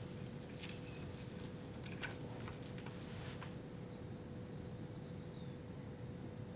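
Quiet room tone with a steady faint hum, and faint rustles and small clicks of a stethoscope and clothing as the chest piece is moved on a shirt; these stop about halfway through. A faint high chirp sounds near the end.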